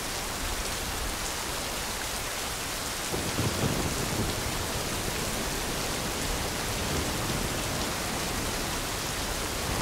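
Steady rain falling, with a low rumble of thunder swelling in about three seconds in.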